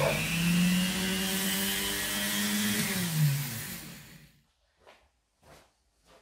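Parkside PFBS 160 B2 rotary multi-tool motor running with a steady hum and high whine, then switched off about three seconds in, dropping in pitch as it winds down to a stop.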